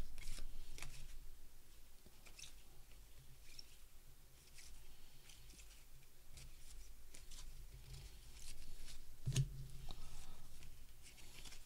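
A stack of cardboard baseball cards being thumbed through by hand: cards sliding over one another in a string of soft scrapes and light clicks, with one louder click about nine seconds in.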